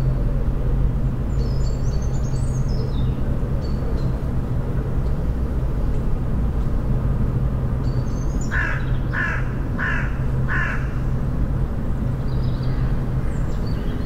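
Outdoor bird ambience over a steady low rumble with a hum. About two-thirds of the way through a bird gives four loud calls in quick, even succession. A few short, high, faint chirps come early on and near the end.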